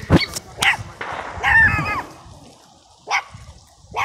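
Dog barking several times in short, separate barks, with a longer wavering yelp about a second and a half in.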